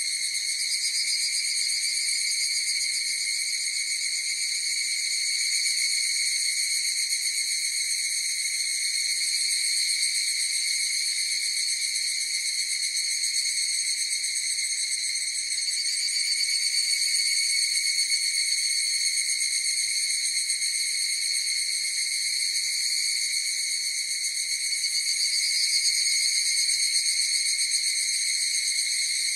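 A chorus of higurashi (evening cicadas) calling continuously, a high, rapidly pulsing trill that swells slightly in loudness a few times.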